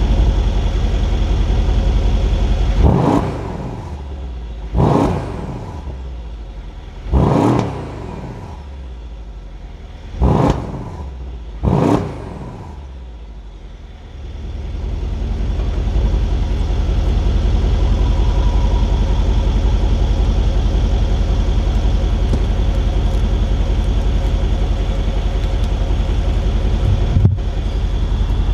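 2016 Mercedes-Benz E63S AMG's twin-turbo V8 idling with a deep rumble. It is blipped five times in quick, sharp revs between about 3 and 12 seconds in, each falling back within a second. Between the blips the idle is quieter, and it swells back to its full rumble a few seconds after the last rev.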